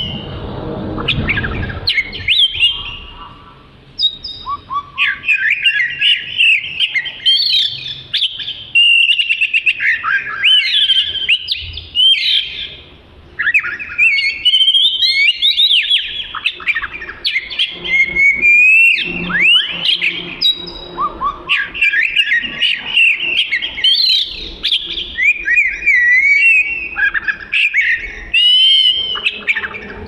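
Oriental magpie-robin (kacer) in full song: a loud, near-continuous run of quick rising and falling whistles and trills, with short pauses about four seconds in and near the middle.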